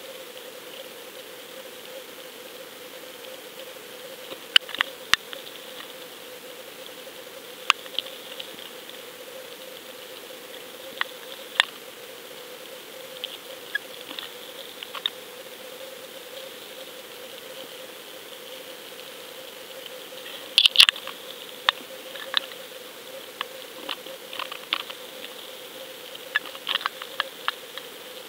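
Underwater sound picked up through a camera's waterproof housing as it spins on a fishing line: a steady hum and hiss with irregular sharp clicks and ticks, the loudest cluster about two-thirds of the way through.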